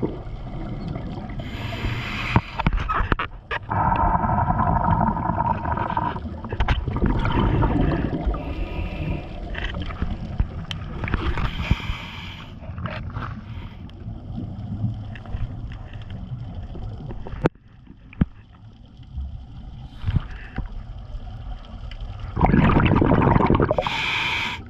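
Scuba diver breathing through a regulator underwater: short hissing inhalations and longer bursts of exhaled bubbles, a few breaths with quieter gaps between them.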